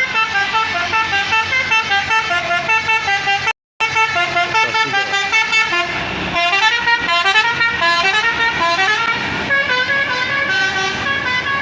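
Medium bus's basuri telolet horn playing a fast melody of short stepped notes, with a brief dropout a few seconds in. About halfway a rush of noise from the passing bus rises under the tune.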